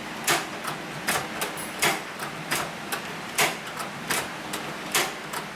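Hand-crank leather sewing machine stitching slowly, with a sharp mechanical clack about every three-quarters of a second and lighter clicks in between.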